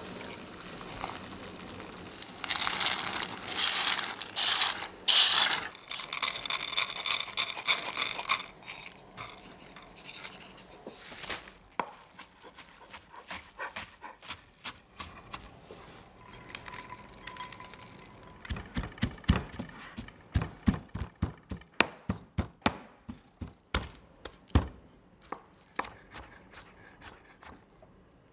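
Kitchen sounds: a hissing, rushing stretch in the first few seconds, then a chef's knife chopping herb leaves and garlic on a wooden cutting board, in quick runs of sharp knocks that grow heavier in the second half.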